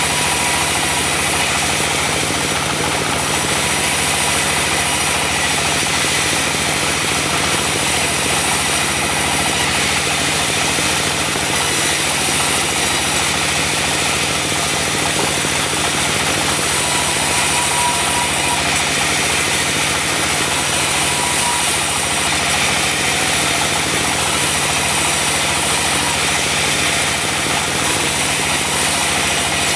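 Diesel engine of a portable band sawmill running steadily as the band saw cuts mahogany, with a high hiss that comes and goes every couple of seconds.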